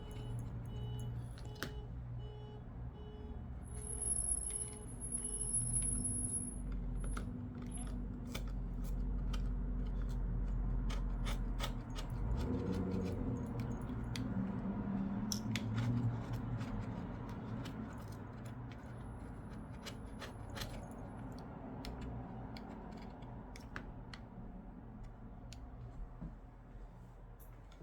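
Small hand tool scraping and clicking against an iPad 2's frame, clearing off old screen adhesive, with a steady low hum underneath.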